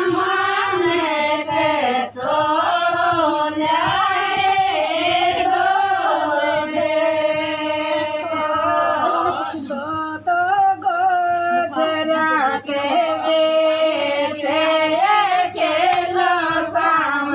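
A group of women singing a Shekhawati folk song (geet) together, a chant-like melody with long held notes.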